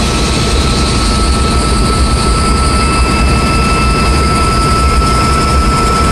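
Vintage Bell 47 helicopter in steady flight, heard from inside the cabin. The piston engine and rotor make a loud, constant noise with a steady high tone running through it.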